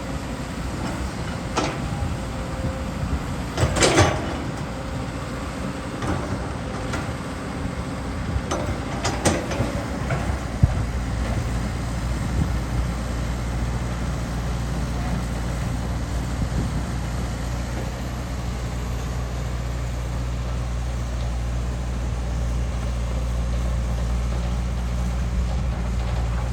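Diesel engine of heavy earthmoving machinery running. There are a few sharp metallic clanks in the first ten seconds. About ten seconds in, the engine grows louder and steadier, as if under more throttle.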